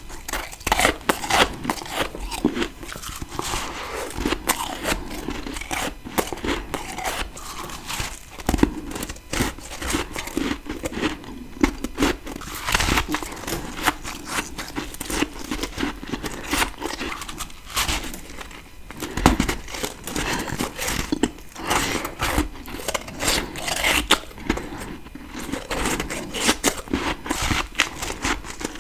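Biting and chewing freezer frost, a dense run of crunching and crackling with frequent sharp crunches throughout.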